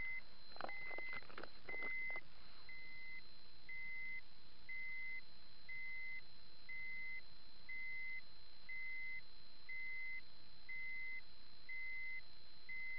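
Handheld radiation dosimeter beeping steadily, a short high beep about once a second: its alarm for a dose rate far above background, here about 32 microsieverts per hour at a rainwater drain outlet. A few handling clicks in the first two seconds.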